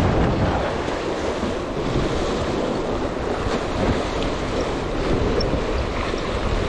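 Ocean waves washing and breaking against the boulders of a rock jetty, with wind buffeting the microphone.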